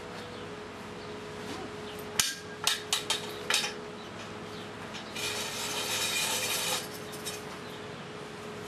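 A broom tugged about by a puppy: a few sharp knocks as it clatters on concrete, then about a second and a half of bristles scraping across the concrete. A faint steady hum runs underneath.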